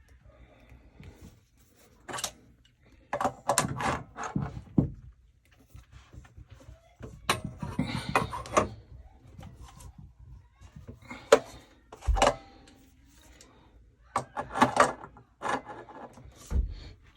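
Hand tools and plumbing fittings being worked on a water heater's relief-valve pipe: irregular clusters of clicks, scrapes and clanks, with two low thumps, one about twelve seconds in and one near the end.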